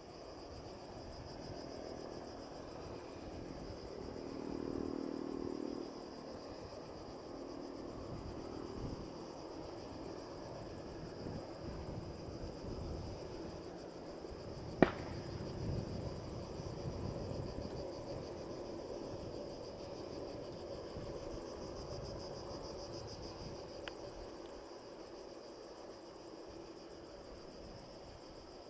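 Insects chirring steadily in a fast, high buzz over a faint low rumble. A single sharp click comes about halfway through.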